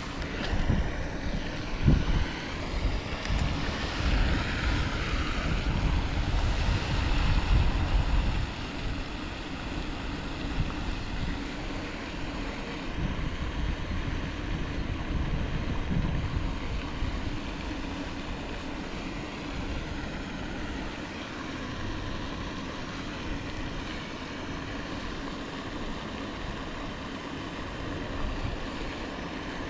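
Wind buffeting the microphone, heaviest for the first eight seconds or so, then easing to a steady outdoor rush.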